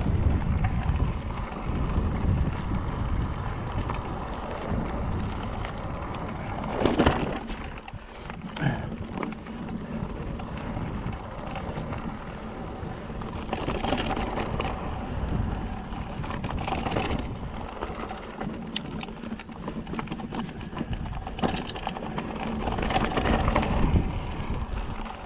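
Mountain bike riding a rough dirt and rock trail: tyres crunching over gravel, with scattered knocks and rattles, and wind rumbling on the microphone.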